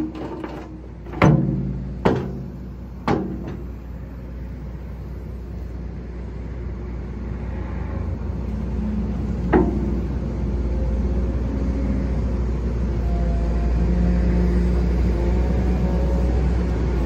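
XCMG 210 excavator's diesel engine running, with three sharp metal clanks in the first few seconds and one more near the middle as the JRB hydraulic quick coupler catches and seats on the bucket's pins. The engine drone then grows gradually louder as the attached bucket is worked and lifted.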